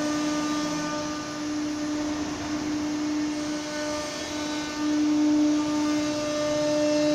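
Automatic tool-change CNC router spindle cutting a wood panel: a steady high whine over a rushing noise, growing louder about five seconds in.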